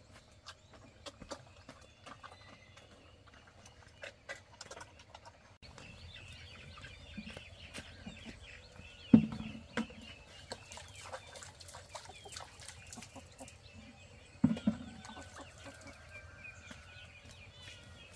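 Farmyard chickens clucking with small bird chirps throughout, and two loud knocks, about nine seconds in and again near fifteen seconds, the first the louder.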